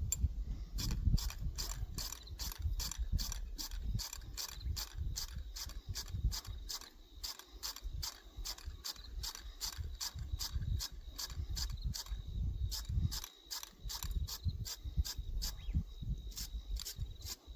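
Threads on a pump part being cleaned of old thread-locking glue by hand: a steady rhythm of sharp clicking, scraping strokes, about two or three a second, over a low rumble.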